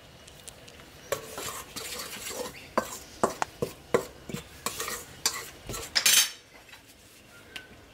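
A metal spoon stirring and scraping through flour in a stainless steel bowl, with many short clinks against the bowl. About six seconds in there is a brief louder rustle, then the stirring stops.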